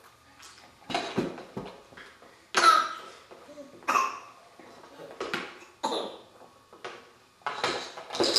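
Two babies making short non-word vocal sounds, grunts, squeals and coughs, in a string of brief separate bursts.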